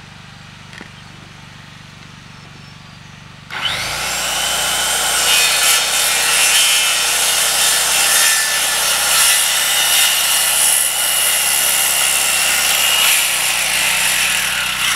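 Power saw cutting through the top of a wooden post, starting abruptly about three and a half seconds in, running steadily with a faint whine, and stopping near the end.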